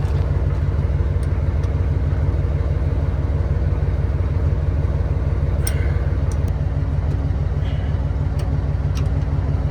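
Heavy truck's engine idling steadily while it builds up air pressure for the trailer's air brakes, with a couple of light clicks about halfway through and near the end.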